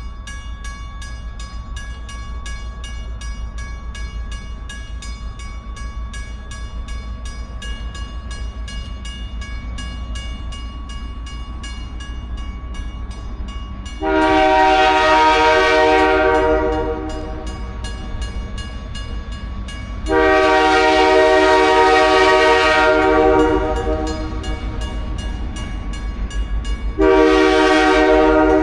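Freight locomotive air horn sounding two long blasts and then a short one, a rich multi-note chord: the start of the long-long-short-long grade-crossing signal. Under the horn, a fast, even ringing goes on throughout.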